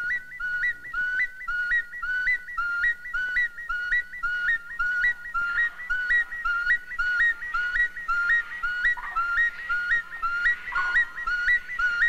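Small hunting flute blown in short two-note calls, a low note jumping up to a higher one, repeated evenly about twice a second. It imitates the cry of an eagle, the monkey's greatest enemy, to lure monkeys down from the treetops.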